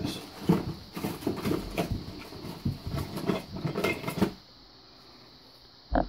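Metal Allen wrenches clinking and rattling as they are rummaged through, an irregular clatter that stops after about four seconds, with a single click near the end.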